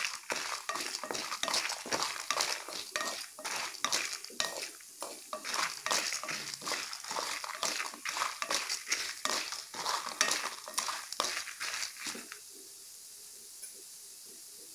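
A wooden spatula stirs split chana dal and dried red chillies frying in oil in a kadai, making quick repeated scraping strokes against the pan. The stirring stops about twelve seconds in, leaving a soft steady sizzle.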